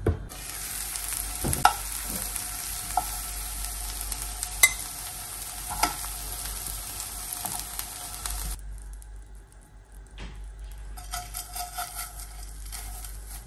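Food sizzling in a hot frying pan, a steady hiss with a few sharp clinks of a utensil against the pan. The sizzle cuts off suddenly about eight and a half seconds in.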